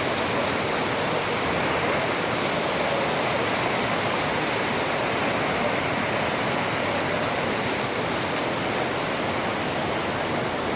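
Steady rushing of fast-flowing floodwater, an even roar with no breaks.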